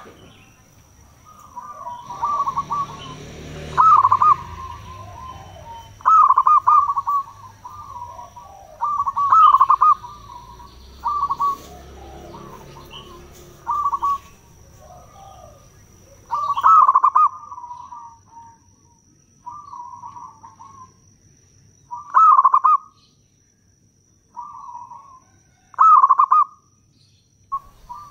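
Zebra dove (perkutut) cooing: phrases of quick, rolling coo notes, a loud phrase every few seconds with softer notes between.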